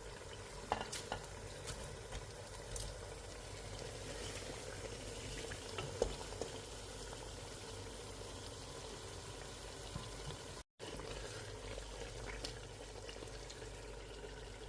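A pot of food cooking on the stove: a faint, steady hiss with a few light clicks. The sound cuts out for a moment about ten and a half seconds in.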